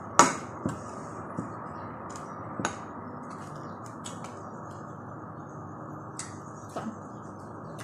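A few sharp clicks and knocks of dishes and tableware being handled while eating, the loudest just after the start and the rest scattered and fainter, over a steady background hiss.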